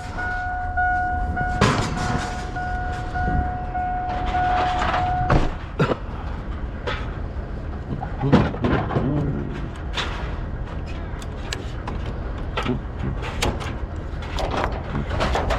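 Vehicle engine running under a steady electronic warning tone, which cuts off abruptly about five seconds in. Scattered knocks and clunks follow over the running engine.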